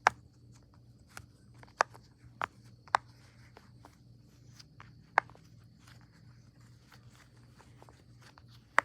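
Silicone pop-it fidget toy being pressed: six sharp pops at an uneven pace.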